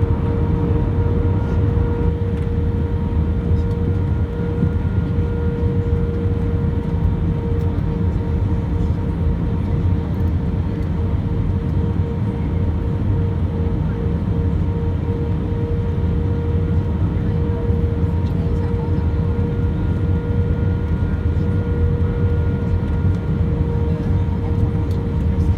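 Airbus A320 cabin noise: a steady, loud low rumble of engines and airflow with a constant hum, unchanging throughout.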